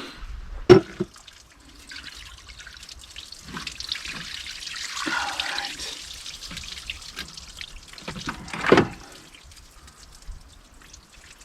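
Residual engine coolant trickling and dripping out as the water pump comes off the Ford 555 backhoe's engine. A sharp metal click comes about a second in and a louder knock near the end.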